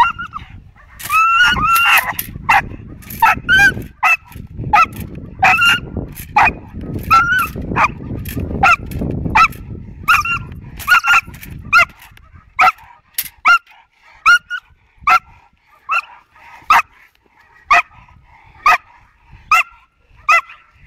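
A five-and-a-half-month-old Malinois puppy barking repeatedly in high, sharp barks, about one a second, as it is held back on its harness and worked up in bite-work drive. A low rumbling noise runs under the barks and stops about twelve seconds in.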